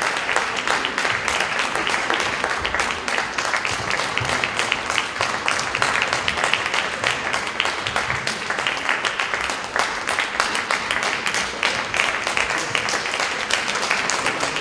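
Audience applauding: dense, steady clapping from a concert hall audience.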